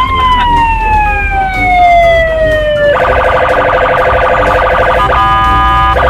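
Police car siren: a tone that sweeps up, then slides slowly down for about three seconds, then switches to a fast warbling yelp that runs on.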